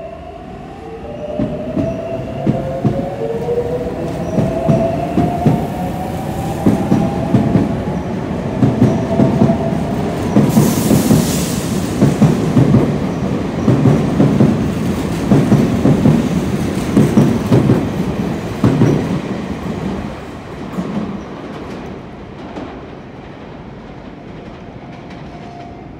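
Sotetsu 8000 series electric train pulling out: its traction motors whine, rising in pitch over the first few seconds, then the wheels clatter over the rail joints, building and then fading after about twenty seconds as the train leaves. A brief hiss comes about ten seconds in.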